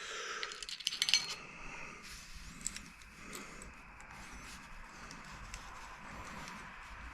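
Light metallic clinks and rattles of hand-guard mounting hardware being handled, loudest in a quick cluster about a second in, then a few faint ticks.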